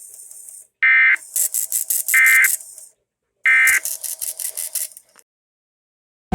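Emergency Alert System end-of-message digital tones: three short, harsh data bursts about a second apart, marking the close of the alert test, with a fainter rapid fluttering between the first bursts.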